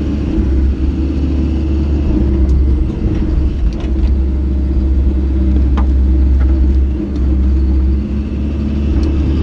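Excavator diesel engine running steadily, with a few short metallic clicks and knocks.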